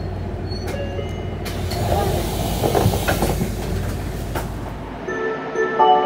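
Interior running sound of an Isuzu Erga city bus: low engine and road rumble, with a hiss for a few seconds in the middle. About five seconds in it gives way to light mallet-percussion music.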